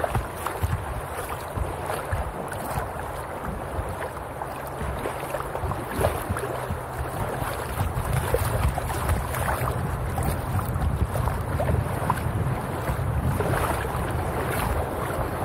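River water rushing and splashing against the bow of a tandem inflatable kayak as it runs through choppy water, with wind rumbling on the microphone.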